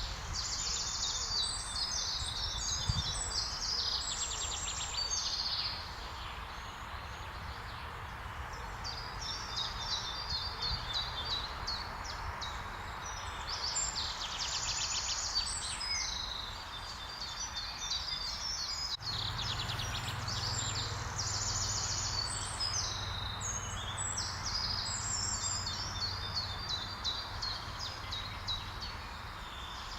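Small songbirds singing in repeated phrases of rapid high notes, over a steady background hiss of outdoor noise. A low steady hum sets in a little past halfway.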